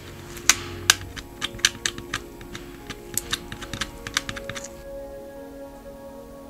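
Utility knife blade scraping and clicking against a metal bicycle head badge in short, irregular strokes, picking at its engraved lettering, over background music. The strokes stop near the end, leaving only the music.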